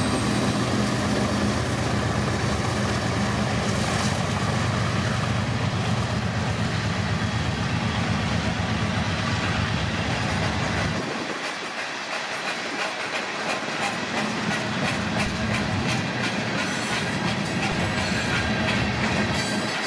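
Diesel freight locomotives passing close by with a steady engine drone that drops away about halfway through. Freight cars then roll past, their wheels clicking over the rail joints.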